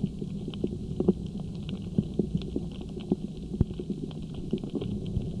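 Underwater ambience picked up by a submerged camera: a steady low rumble with many short, irregular clicks and crackles, several a second, a sharp one about three and a half seconds in.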